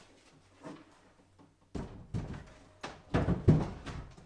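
Wooden knocks and thuds as the heavy pine top of a knockdown wardrobe is lowered and settled onto its sides and back panels: about six knocks, starting a little under two seconds in and getting louder.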